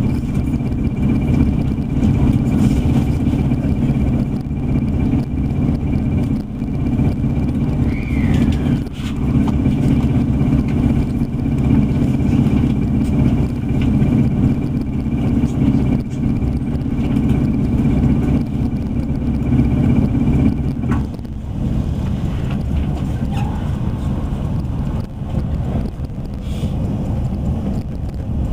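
Electric commuter train running at speed, heard from inside the car: a steady low rumble of wheels on rails with a thin high whine. About three-quarters of the way through, the whine stops and the rumble eases.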